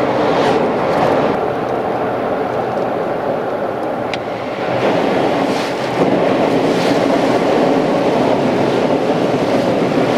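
A car driving: steady road and wind noise.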